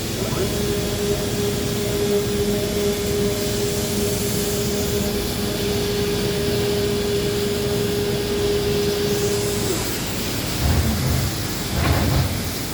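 Plasma cutting machine running: a steady hiss with a steady whine that cuts off about ten seconds in, followed by a few short low thumps near the end.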